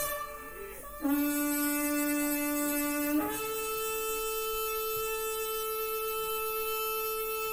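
A shofar being blown: a lower note held for about two seconds, then a break up to a higher note held long and steady.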